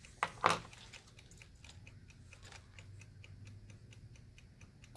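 Quick, even ticking of a clock, with one short, louder sound about half a second in.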